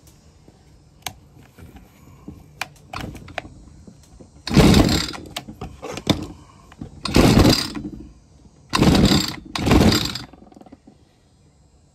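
Echo SRM 2620 two-stroke string trimmer being cranked with its recoil starter cord, four pulls of about half a second each, without the engine catching. It is being turned over to check for spark with an inline tester. There is spark but no start, which the repairer takes for a carburetor issue.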